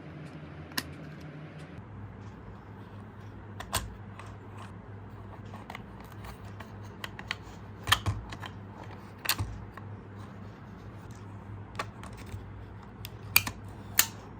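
Toy remote-control car being handled: irregular plastic clicks and knocks, a few of them sharp, over a steady low hum that drops in pitch about two seconds in.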